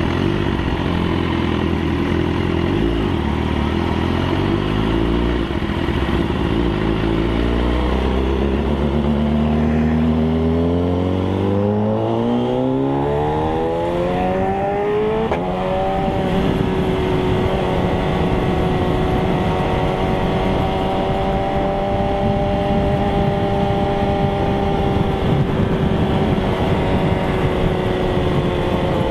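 Sportbike's inline-four engine heard from on the bike: running low and steady at first, then climbing in pitch for about eight seconds as the bike accelerates, then holding a steady higher pitch at cruising speed with wind rushing over the microphone.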